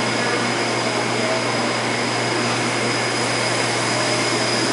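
Steady whir of machinery running in an auto repair shop, with a low hum and a thin high whine underneath it.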